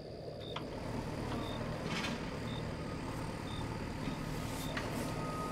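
Pickup truck engine running steadily as the truck drives along, growing a little louder over the first couple of seconds. A short high chirp repeats about once a second behind it.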